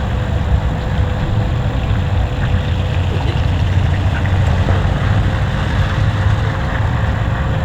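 A large engine running steadily at idle, a low, even rumble.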